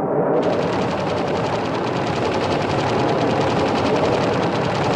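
Fighter-aircraft machine-gun fire: a fast, steady rattle that starts about half a second in and runs as one continuous burst over a constant low rush.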